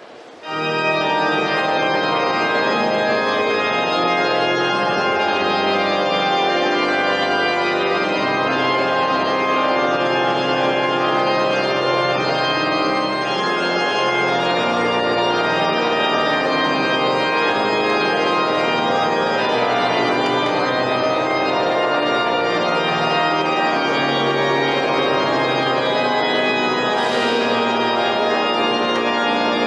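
Pipe organ playing loud, full sustained chords that come in suddenly about half a second in.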